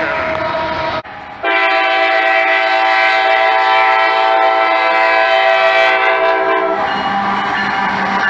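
Diesel locomotive air horn sounding a chord of several steady notes. It cuts out briefly about a second in, then sounds one long steady blast of about five seconds, which ends near seven seconds in and gives way to a lower steady hum.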